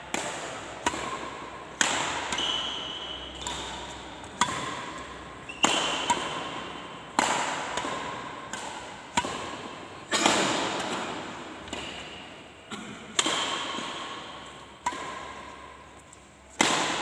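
Badminton rally: a shuttlecock struck back and forth with rackets, a sharp hit about every one to one and a half seconds, each echoing in a large indoor hall.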